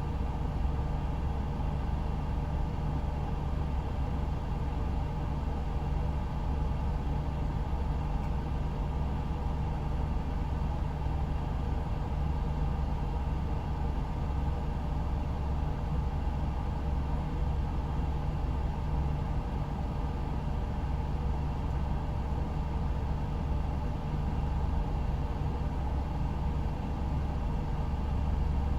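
Steady low rumble of a vehicle engine, with no siren sounding.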